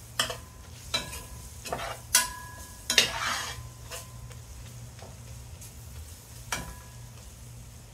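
A metal spoon stirring and scraping chopped onions and peppers with flour in oil in a metal pot, over a low sizzle: the sauté base being thickened with flour. Several scrapes and clinks of the spoon on the pot, the loudest about three seconds in, with a steady low hum underneath.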